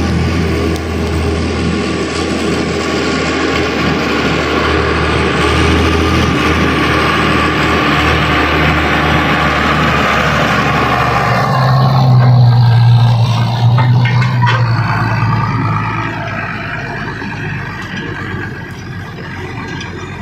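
Ursus tractor's diesel engine running steadily as it pulls a trailer past: the engine grows louder, at its loudest with a deep hum about twelve seconds in as it passes close, then fades as it drives away.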